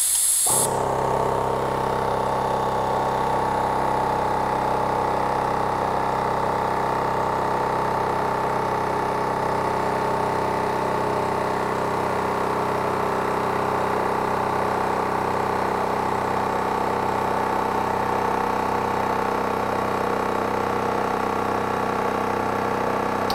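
Makita 40V XGT 2-gallon Quiet Series cordless air compressor (AC001G) running steadily with a low hum, its brushless motor and pump refilling the tank after the pressure fell to the 105 PSI cut-in. A brief hiss at the very start.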